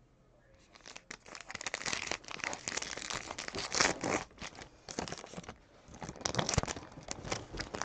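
Crinkling and tearing of a trading-card pack wrapper being ripped open: a dense run of crackly rustles that starts about half a second in, with a brief lull a little past the middle.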